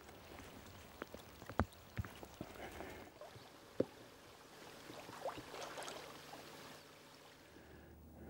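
Faint water sounds: gentle lapping and trickling, with a few small sharp drips or clicks in the first four seconds.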